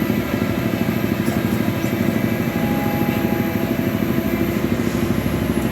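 An engine running steadily at an even, fast throb of about ten pulses a second, which stops at the end.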